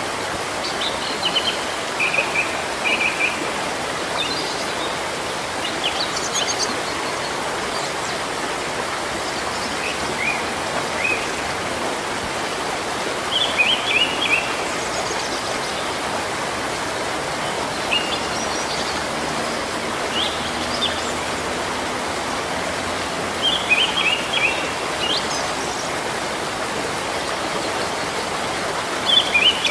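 Steady rain falling on foliage, a continuous even hiss. Small birds chirp in short bursts over it every few seconds.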